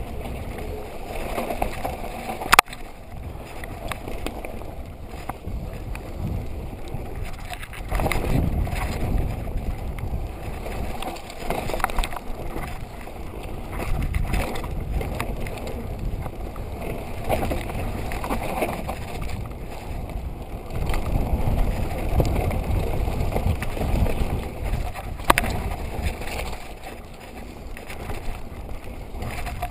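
Mountain bike riding fast down a dirt trail: tyres on loose dirt and the bike rattling, with wind rushing on the microphone in surges of low rumble. There is a sharp clack about two and a half seconds in and another near the end.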